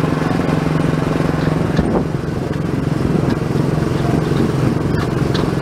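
Small gasoline engine of a Tomorrowland Speedway ride car running steadily under way, a buzzy drone that eases briefly about two seconds in.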